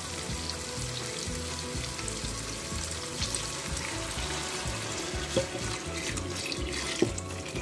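Hot water poured in a steady stream into a wok of sautéed vegetables, splashing into the pan; the stream stops near the end.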